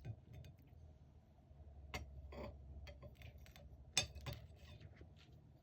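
Faint, scattered clicks and taps of tableware being handled, over a low steady hum. The clearest taps come about two seconds in and about four seconds in.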